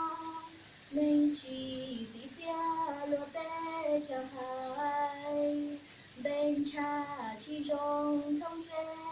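A young girl singing solo without accompaniment: a slow melody of long held notes, with short pauses for breath between phrases.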